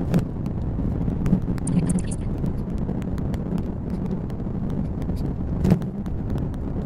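Car cabin noise while driving slowly: a steady low road and engine rumble, with scattered light clicks and one sharper knock a little before the end.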